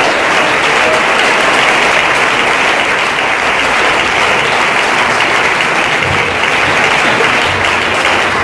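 Congregation applauding: steady, sustained clapping from many people.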